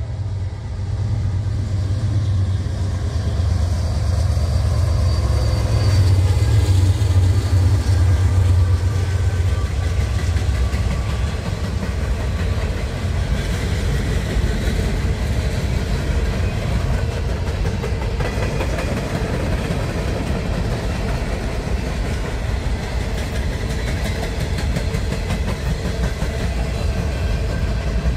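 Norfolk Southern diesel freight train passing: a low locomotive engine rumble builds to its loudest about a quarter of the way in. Open-top hopper cars then roll by with a steady rumble and rapid clatter of steel wheels on the rails.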